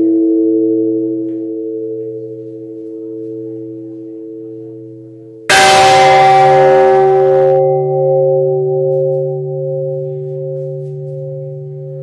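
Church bells tolling a death knell for a woman (toque de difunto). The hum of the previous stroke fades away, then about halfway through a bell is struck once, loudly, on a different pitch, and rings on, slowly fading with a pulsing hum.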